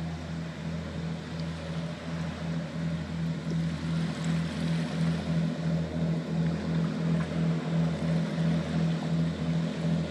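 Diesel engines of a 37-foot Moose Boats catamaran fire boat running steadily, a deep hum that pulses regularly and grows a little louder about three seconds in.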